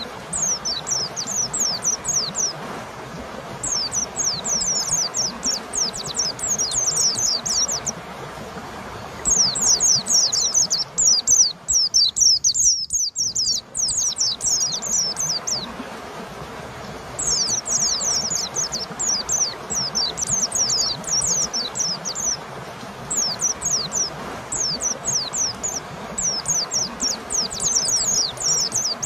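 White-eye (pleci) singing phrases of rapid, high, sharply falling notes, several seconds at a time with short pauses between, over a steady background hiss.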